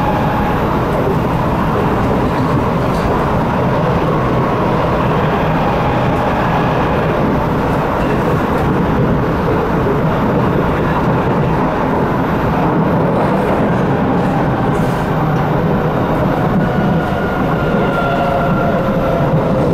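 Interior noise of a C751B metro train car running on the line: a steady rumble of wheels and running gear. Above it is a faint motor whine that slides lower in pitch near the end.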